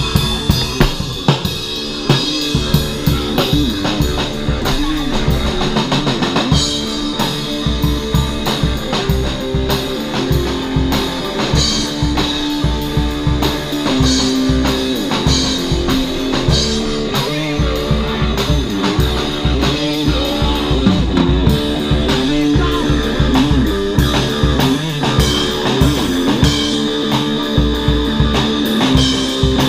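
Live stoner/doom metal band playing: electric guitar over a drum kit, with steady bass drum hits.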